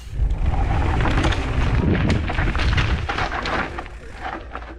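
Wind buffeting the ride-mounted camera microphone while a mountain bike rattles and clatters over rough trail, coming on suddenly and loud for about three seconds before easing off.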